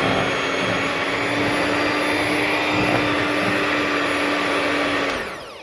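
Electric blender motor running steadily at one speed as it mixes pancake batter, then switched off about five seconds in, its pitch falling as it winds down.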